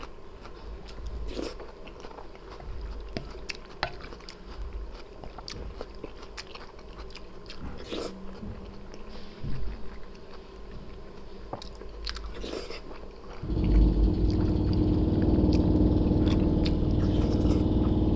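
Close-miked chewing and biting of food, wet mouth sounds with small clicks. About three-quarters of the way through, a loud steady hum with a low drone starts abruptly and covers the chewing.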